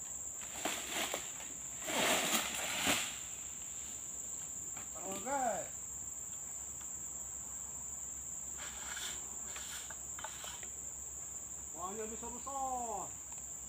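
A steady high-pitched insect drone, with bursts of crackling rustle from dry oil palm fronds, loudest about two seconds in and again around nine to ten seconds. Two short pitched calls come in, one near the middle and one near the end.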